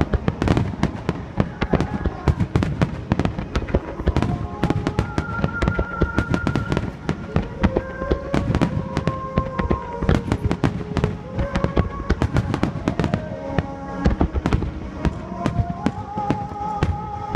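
A dense barrage of fireworks bursting, many sharp bangs and crackles a second, with music playing along underneath.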